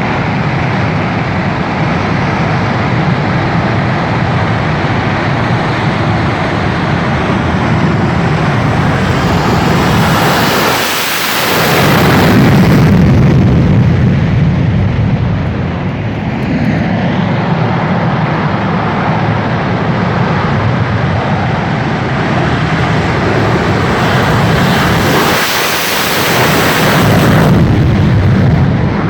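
Twin Rolls-Royce Avon jet engines of an English Electric Lightning running loud and continuous at high power. The noise swells louder and more hissing twice, about ten and twenty-five seconds in.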